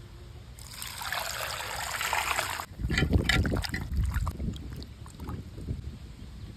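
Water poured from a small clay pot into a larger clay pot of mangoes, a steady splash for about two seconds. Then hands slosh and rub the mangoes in the water, with uneven splashes.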